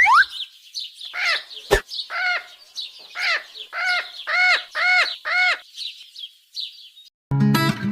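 Bird calls: a run of short arched chirps repeated about twice a second over a higher twittering chatter, with one sharp click about two seconds in. Guitar music comes in near the end.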